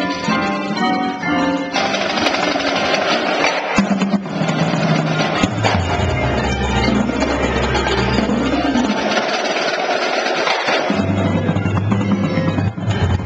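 Indoor drumline playing: marching snare, tenor and bass drums hitting together over pitched front-ensemble keyboard parts, with sustained low tones underneath.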